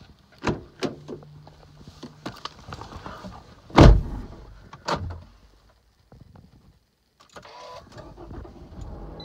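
2012 Toyota RAV4's driver door is opened and shut, with a heavy thump a little under four seconds in and a lighter knock about a second later. About seven seconds in the engine is started with a short burst and settles into a low, steady idle.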